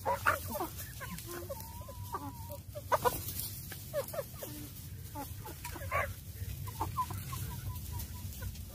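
Several hens clucking around close by: short overlapping calls throughout, with a few sharp crackles of fresh baby corn husks being peeled.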